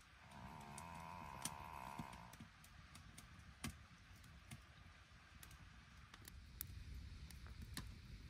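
Faint, sparse crackling pops from a wood fire burning in a fire pit, over quiet low background noise. A faint humming tone runs for about the first two seconds.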